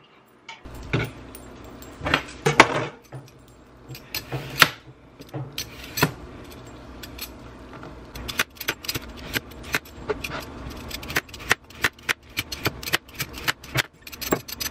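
Kitchen clatter: irregular knocks and clinks of kitchenware, then, from about halfway, a fast run of sharp taps, several a second.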